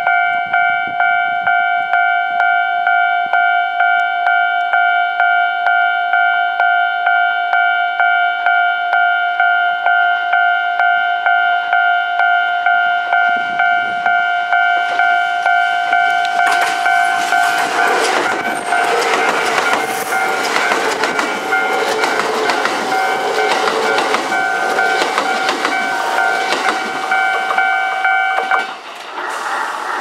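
Railway level-crossing warning bell ringing a steady pitched ding about twice a second. From about halfway, a six-car Kintetsu limited express (22600 series and 22000 series electric cars) passes with loud wheel clatter. The bell cuts off shortly before the end, as the train clears the crossing.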